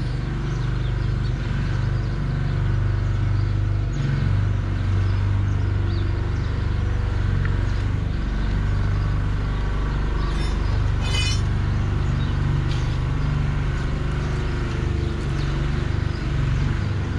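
An engine running steadily close by, a constant low hum, with a few light clicks and a brief run of rapid high ticks a little past halfway.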